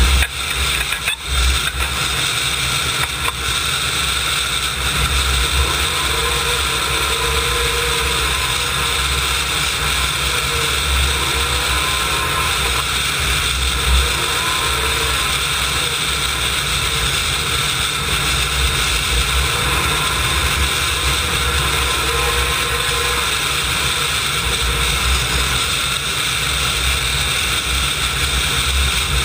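Klimov TV3-117 helicopter turboshaft engines of a turbine tractor puller running steadily, a constant high turbine whine over a low rumble.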